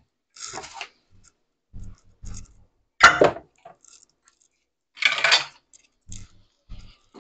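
Kitchen utensils and dishes clattering and clinking on a countertop as they are moved aside: three short clatters, the loudest about three seconds in, with a few soft thumps between.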